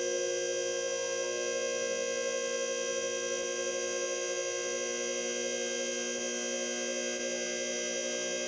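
A steady electronic drone of many tones, low and high, held unchanged throughout.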